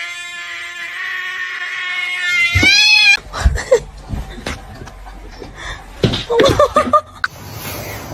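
A cat's long, drawn-out yowl, held steady, then rising in pitch and stopping about three seconds in. After it come scattered knocks and a few short cries.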